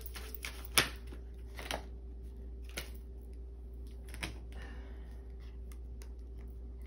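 A few light clicks and taps, the sharpest about a second in, over a steady low hum.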